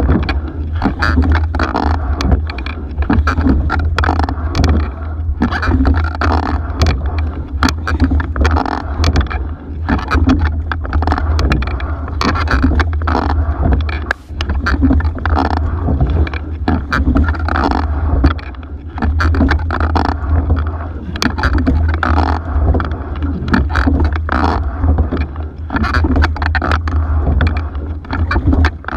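Single scull being rowed: water rushing along the hull and oar blades working the water, with frequent sharp clicks and knocks of the oars turning in their oarlocks, over a steady low rumble.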